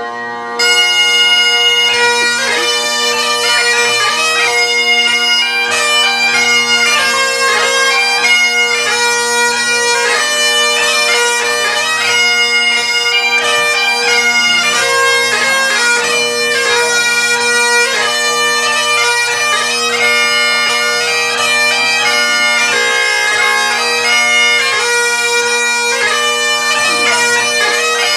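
Bagpipes playing a tune over steady drones; the chanter's melody comes in about half a second in.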